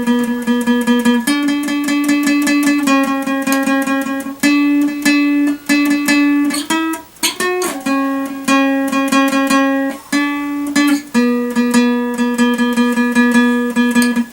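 Acoustic guitar strummed in a quick, steady rhythm as an instrumental break, changing chords every second or two, with a brief slide and dip about seven seconds in.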